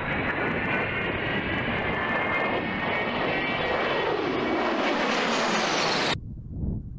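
A-10 Thunderbolt II's twin TF34 turbofan engines whining loudly as the jet banks overhead, the sound sweeping lower as it passes. It cuts off suddenly about six seconds in.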